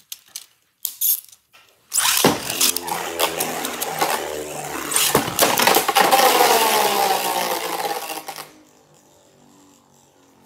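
A few clicks, then two Beyblade spinning tops land in a plastic stadium about two seconds in and spin, clattering and whirring against the floor, the walls and each other, the whir falling in pitch. Near the end the sound drops suddenly to a quiet steady spinning.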